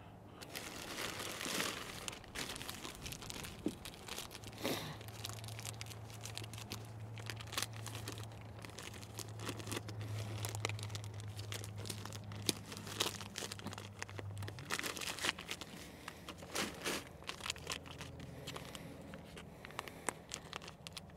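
Plastic lure packaging crinkling and tearing as it is handled, with many small crackles and rustles throughout. A low steady hum runs underneath for about ten seconds in the middle.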